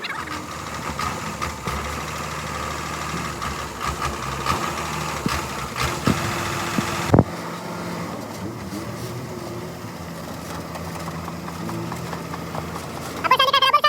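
An engine running steadily, with a high steady whine over it for the first half; a sharp knock about seven seconds in, after which the whine stops and a lower, steady running hum goes on.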